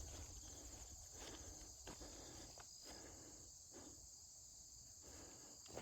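Steady high-pitched insect chorus in mountain woods, with a few soft footsteps on the trail.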